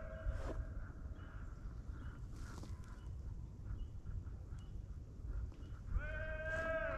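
Deer hounds baying: long drawn-out bawls, one tailing off just after the start and another beginning about six seconds in, each sagging in pitch at its end. A low rumble lies under them.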